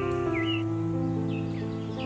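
Background music of long held notes, with short chirps repeating over it that sound like birdsong.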